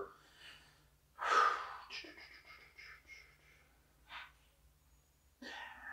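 A man breathing out hard through the mouth about a second in, a sigh-like breath while he thinks, followed by faint mouth noises and a short breath in near the end.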